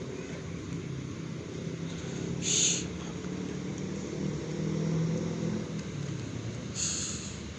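A steady low engine hum that swells about halfway through, with two short high hisses, one about two and a half seconds in and one near the end.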